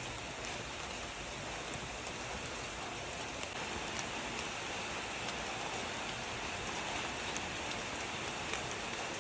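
Steady rain falling, a continuous even hiss with scattered individual drop ticks.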